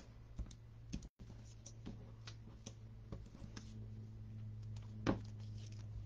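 Faint, scattered clicks and light rustles of hands handling small die-cut paper flowers and card stock, with one sharper click about five seconds in. A steady low hum runs underneath.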